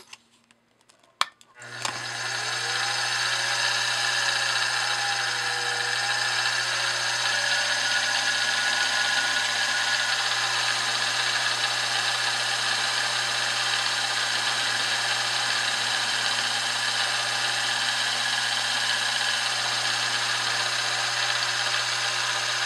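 Milling machine spindle switched on with a click, spinning up about two seconds in and then running steadily while a drill bit cuts a hole in brass stock.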